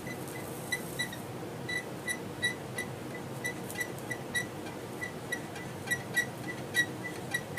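Soldering gun held on a stainless steel plate, humming steadily as it heats the metal for soldering copper wire. Short high-pitched ticks come two or three times a second throughout.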